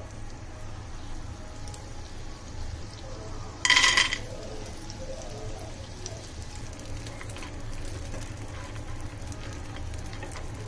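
Butter sizzling faintly in a nonstick frying pan, with a steady low hum underneath. About four seconds in there is a short, loud ringing clatter as raw peanuts are tipped into the pan. Light sizzling and soft spatula stirring follow.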